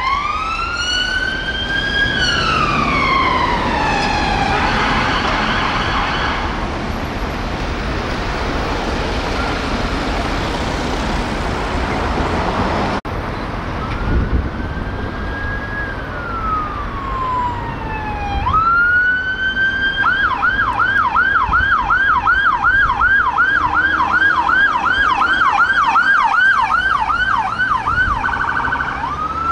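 Metropolitan Police BMW 530d's siren wailing in slow rising and falling sweeps, briefly changing to a faster pattern before it gives way to traffic noise. After a sudden cut, a Renault Master ambulance's siren comes in on a slow wail, switches to a fast yelp of about three cycles a second, and returns to a wail near the end.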